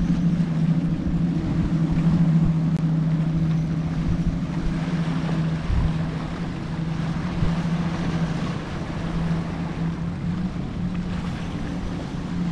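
Steady low hum of a motorboat engine out on the water, with wind rumbling on the microphone and waves washing against the rocks.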